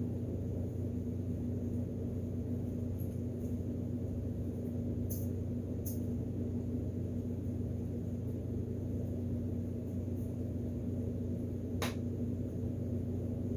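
Steady low hum with a held tone, with three faint sharp clicks: two about five and six seconds in, and one near the end.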